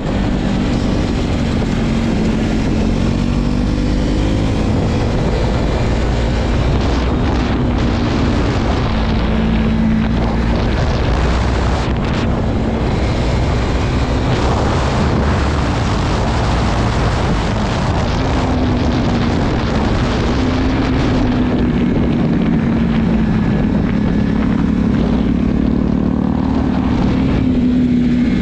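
KTM RC 390 motorcycle's single-cylinder engine running at fairly steady revs, its pitch drifting slowly up and down, with wind rushing over the microphone.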